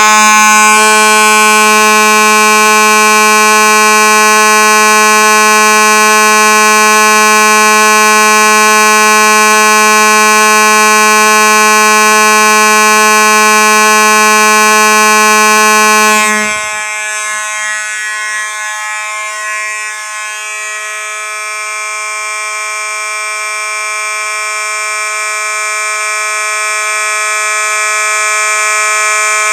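Simplex fire alarm horn sounding a loud, continuous steady tone. A little over halfway through, the lower part of the tone drops out and it turns quieter and thinner, then slowly grows louder again.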